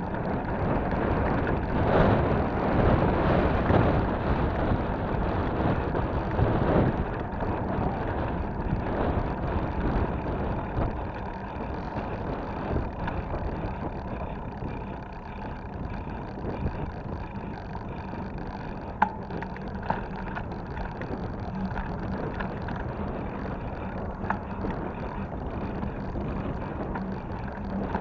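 Wind rushing over the microphone and tyre rumble from a mountain bike rolling along a paved path. It is louder over the first several seconds, and a few light clicks come in the second half.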